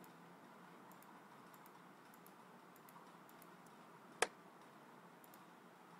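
Near silence with a few faint clicks of a computer mouse and one sharper click about four seconds in, as nodes of a polyline are placed by clicking.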